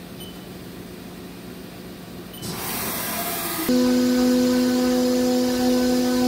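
CNC vertical mill working aluminium: a hiss of flood coolant spray starts about two and a half seconds in. About a second later the end mill bites into the cut with a sudden, loud, steady whine that holds.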